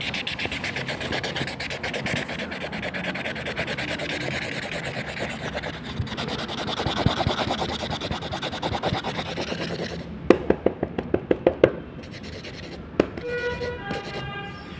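Rapid, dense scratching of a felt brush-pen tip working back and forth over paper, then a quick run of about a dozen sharp taps. Near the end comes a short chime of a few clear notes.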